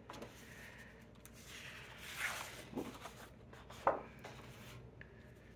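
Quiet rustling and sliding of sheets of scrapbook paper being handled and turned, with a brief rushing swish about two seconds in. A single sharp tap comes a little before four seconds.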